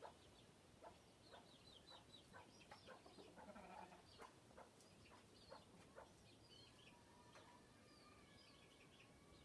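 Chickens calling faintly, with scattered soft clicks and short high chirps. About three and a half seconds in comes a low hen call, and near the end a drawn-out note.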